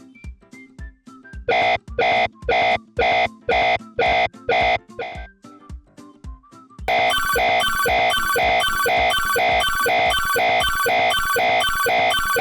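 Electronic Japanese railroad crossing warning bell ringing its repeated 'kan kan' tone at about two strikes a second over light background music. A first run of strikes stops a few seconds in, and after a short pause the bell starts again, ringing continuously and denser.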